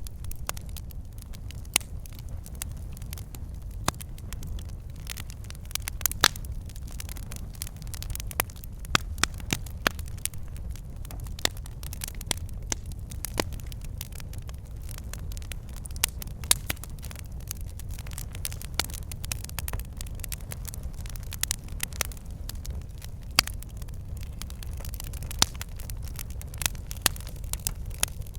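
Wood fire in a fireplace crackling, with irregular sharp pops of burning logs over a steady low rumble of the flames.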